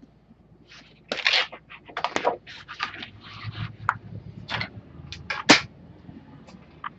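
Stiff card pattern sheet handled and slid across the cutting table: a run of irregular rustles and scrapes, loudest a little after one second in and again about five and a half seconds in.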